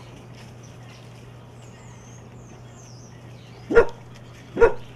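Basset hound puppy barking twice in quick succession near the end, two short loud barks a little under a second apart.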